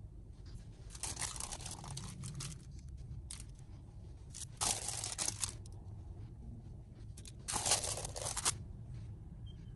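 Salt crystal soap being unmolded: three bursts of peeling, tearing noise, each about a second long, about a second in, around the middle and near the end.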